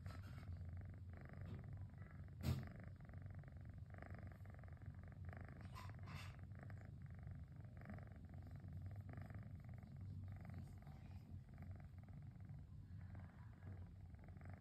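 A kitten purring steadily: a low, motor-like purr close to the microphone. A single sharp click comes about two and a half seconds in.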